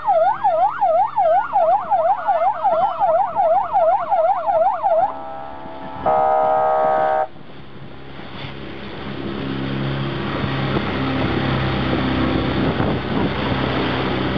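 Electronic siren sounding a fast warbling yelp, about four rises and falls a second, for about five seconds. A steady horn tone follows for about a second, then a motorboat's engine running with rushing water.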